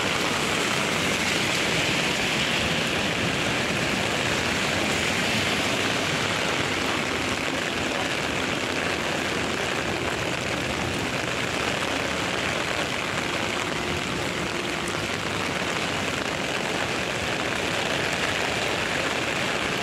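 Heavy rain falling steadily on a wet street and pavement: a dense, even hiss that holds at the same level throughout.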